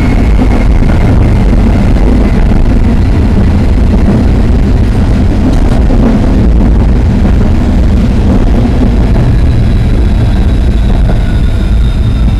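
Tram running along open track: a loud, steady rumble of wheels on rails. A faint high whine slowly drops in pitch over the first few seconds, and thin high tones come in near the end.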